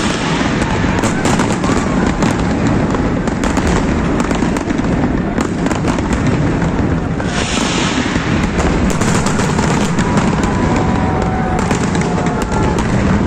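Large aerial fireworks display: a continuous, dense run of crackling bangs and pops, with short hissing bursts at the start and about seven seconds in.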